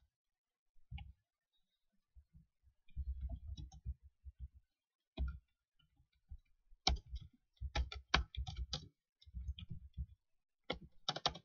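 Computer keyboard typing: bursts of key clicks with short pauses between them.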